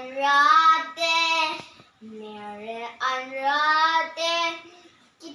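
A young boy singing unaccompanied: two phrases of held, sliding notes with a short breath between them.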